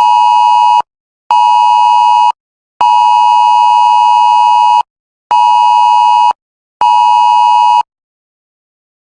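Electronic emergency-alert beeps: a loud, buzzy steady tone sounding about a second on and half a second off, with the middle beep held about two seconds. Five beeps in all, stopping about eight seconds in.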